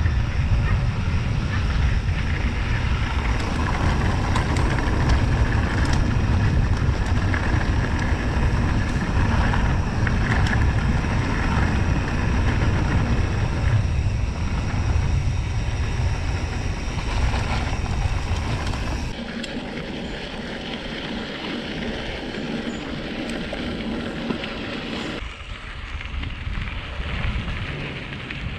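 Wind buffeting the bike-mounted camera's microphone, mixed with tyres rolling over a dirt track, while a Rockrider XC 100 S mountain bike is ridden. The low wind rumble eases noticeably about two-thirds of the way through.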